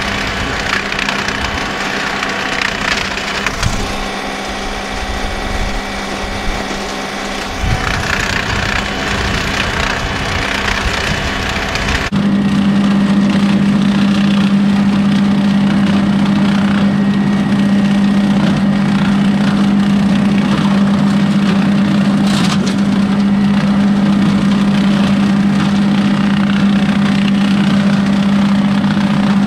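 John Deere 2038R compact tractor's three-cylinder diesel running steadily under load while it drives a rotary cutter through dry corn stalks, with uneven noise from the brittle stalks breaking against the machine. About twelve seconds in the sound changes abruptly to a louder, very steady hum of the rotary cutter's spinning drive and blades.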